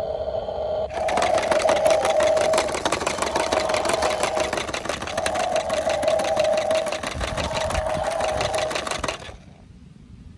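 Toy transport truck's electronic sound effect, set off by a button on the cab roof: a steady tone, then about eight seconds of a rapid, rattling engine-running sound from its small speaker that cuts off suddenly near the end.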